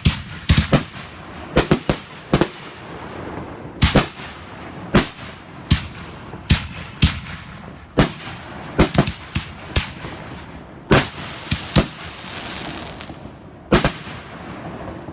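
Consumer fireworks going off: about twenty sharp bangs at irregular intervals, often in quick pairs, with a stretch of crackling hiss about two-thirds of the way through.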